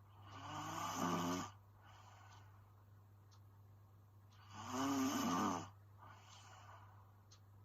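A young woman snoring in her sleep: two snores, each a little over a second long, about four seconds apart.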